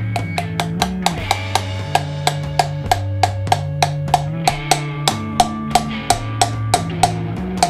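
Hammer strikes on a steel punch driving a wheel bearing into a motorcycle's rear wheel hub, a steady run of sharp metallic taps at about three a second. Guitar background music plays underneath.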